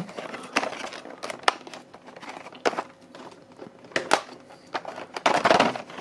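A thin plastic blister tray of toy vehicles and its cardboard box being handled: scattered clicks and crinkles, then a longer crinkling rustle near the end.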